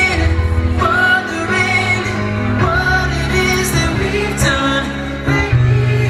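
Live pop song played by a band: a man singing over electric keyboard, a sustained bass line and drums.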